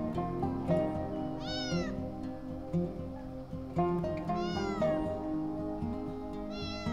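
A domestic cat meowing three times: about a second and a half in, just past the middle, and near the end. Each meow is short and rises then falls in pitch. Background music plays underneath.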